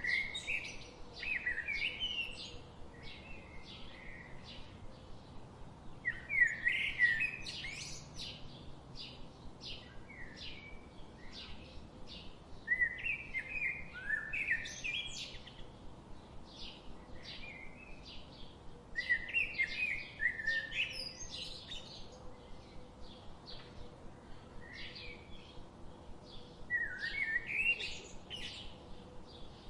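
Songbirds chirping. One bird repeats a quick, warbled song phrase about every six to seven seconds, with steady short chirps in between.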